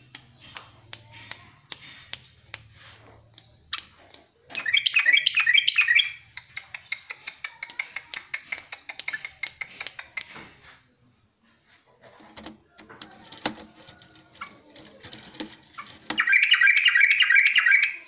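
Caged yellow-vented bulbul (trucukan) giving loud, harsh chattering calls in two bursts, one about five seconds in and one near the end, with a run of quick sharp ticks between them. This is the excited calling of a bird over-stimulated in breeding condition (over birahi).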